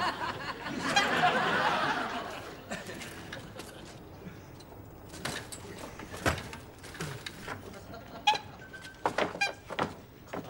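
Studio audience laughing, dying away after about two seconds, followed by a few scattered clicks and knocks.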